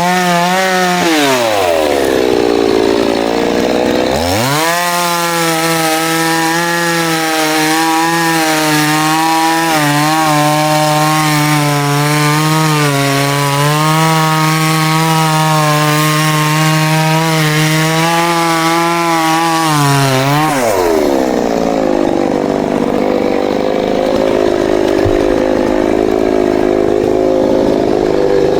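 Two-stroke New West 588 chainsaw: it drops off the throttle about a second in, then revs back up and holds near full throttle while cutting wood, its pitch dipping slightly under load. About 20 seconds in it falls back to a low idle.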